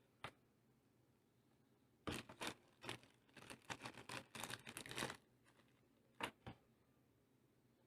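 Small sharp clicks and scrapes from hands working on a mechanical keyboard while its switches are swapped: one click, then about three seconds of rapid, irregular clicking and scraping, then two more clicks.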